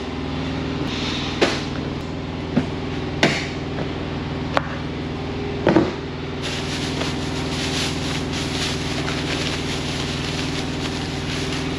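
A plastic storage tote and its contents being handled: a few sharp knocks and clatters, then from about halfway on the crinkly rustle of a black plastic bag being pulled about. A steady low machine hum runs underneath.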